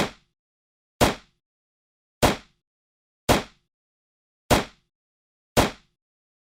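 9mm pistol firing single shots, six in a row at roughly one a second. Each is a sharp crack that dies away within a fraction of a second, with dead silence between shots.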